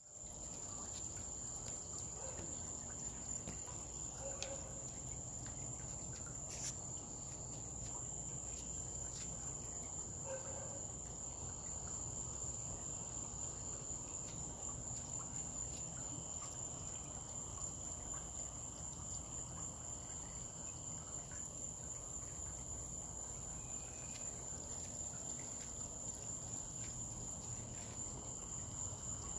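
Insects trilling in a steady, unbroken high-pitched chorus, over a faint low background rumble.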